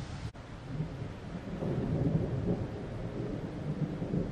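Rolling thunder from a thunderstorm: a low rumble that swells about a second and a half in and keeps rolling.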